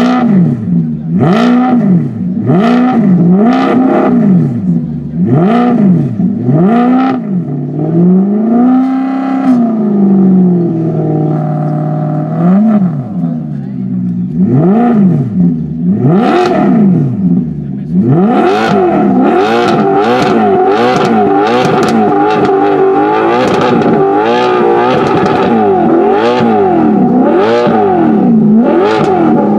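Alfa Romeo Disco Volante Spider's 4.7-litre V8 revved at standstill in quick throttle blips, about one a second. A longer rev about nine seconds in falls back to idle. From about eighteen seconds in the blips carry on over a steady higher tone.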